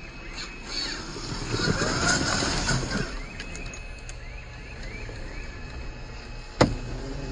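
Traxxas TRX-4 Defender 1/10-scale RC crawler climbing rock: its electric motor and gearbox whine in short spurts of throttle while the tyres scrabble on the stone. A single sharp knock comes about six and a half seconds in, the loudest sound here.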